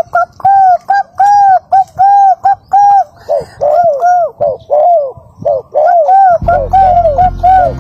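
Dove calls repeated loudly in quick succession, each a short arched note, about two a second. Background music comes in near the end.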